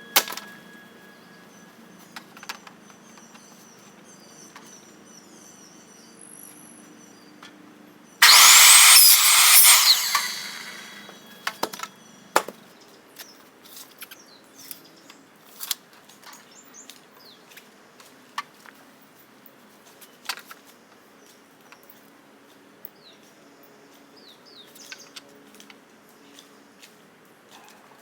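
A power saw cutting PVC pipe: one loud burst of about two seconds, starting about eight seconds in and dying away over the next two seconds. Scattered light clicks and knocks through the rest.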